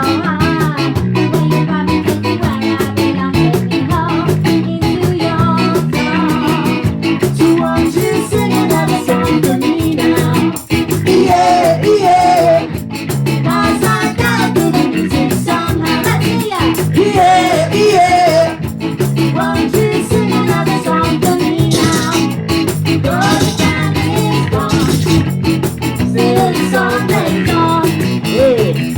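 Ska-punk band playing live: electric guitar, bass and drums with a driving beat, and singing over it at times.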